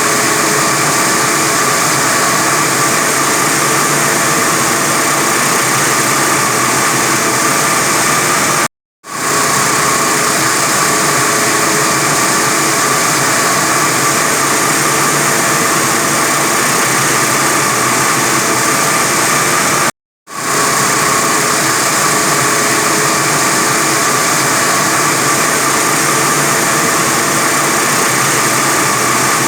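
45 kW diamond wire saw running steadily as its wire cuts through reinforced concrete: continuous machine noise with a constant whine. The sound drops out abruptly for a moment twice, about nine and twenty seconds in.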